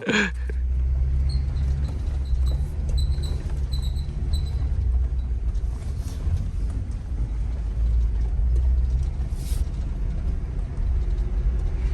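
A vehicle driving, heard as a steady low rumble of engine and road noise, with faint high chirps a few times in the first few seconds.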